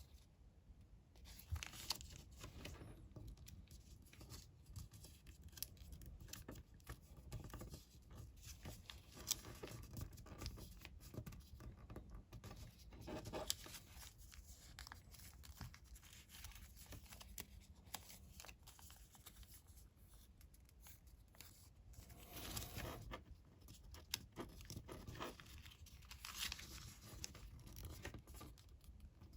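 Soft rustling, creasing and crinkling of a sheet of colored origami paper being folded by hand into a fish. There are small scattered crackles and a few longer, louder swishes of the paper, one just past the middle and two near the end.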